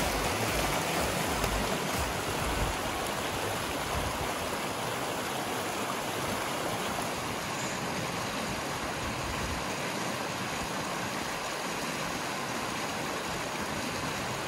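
Shallow mountain creek rushing and splashing over rocks in small rapids, a steady even rush of water.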